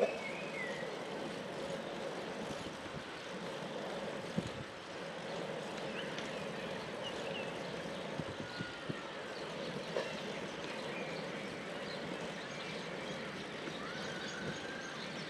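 Steady drone of road traffic with wind and riding noise, heard from a bicycle on a cycle path.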